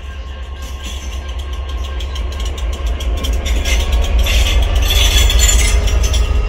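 A DB Cargo Class 67 diesel locomotive passes on its own, its EMD two-stroke V12 engine running, with wheel and rail noise. The sound builds steadily and is loudest about five seconds in, as the locomotive draws level and goes by.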